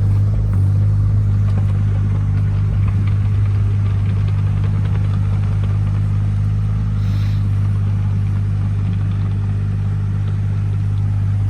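A machine's engine running steadily at one speed, a deep even hum with no revving.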